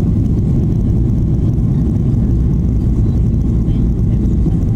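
Steady low cabin rumble of a Boeing 737-800 on final approach with its flaps extended: airflow and the CFM56-7B turbofan engines heard from inside the passenger cabin.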